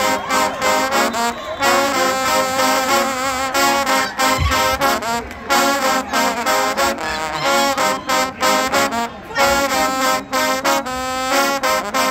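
A marching band's trombone section playing a tune together, loud brass notes in short phrases with brief breaks between them.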